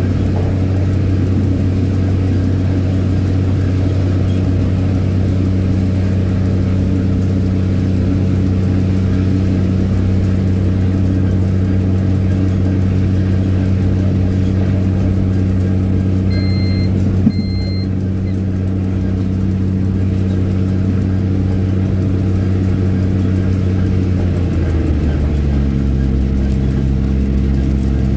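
Diesel train engine running steadily under way, a constant low drone. About 17 seconds in come two short high beeps and a small knock, and about 25 seconds in the engine note changes.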